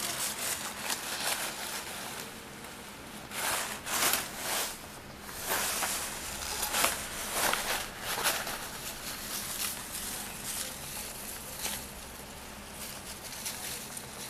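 Irregular rustling and crinkling of a homemade pink jellyfish toy as a cat paws, grabs and tugs at it. The rustle comes and goes and is loudest in the middle.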